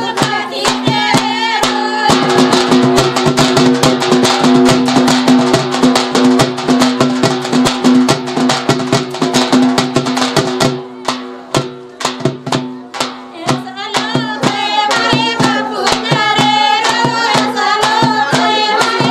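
Banjara wedding folk song (lagn geet): quick drum strokes over a steady held drone note, with a busy jingling stretch of percussion in the first half. The music thins to sparser drumming past the middle, then a voice sings wavering melodic lines near the end.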